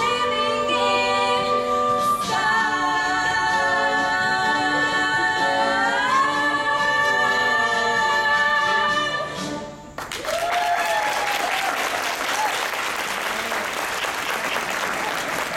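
Singers holding the closing chord of a stage-musical number, sliding up to a higher chord about six seconds in and cutting off just before ten seconds in. Audience applause follows.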